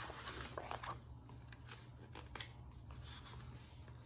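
Pages of a hardcover picture book being turned and handled: a paper rustle in the first second, then a few faint taps and rustles.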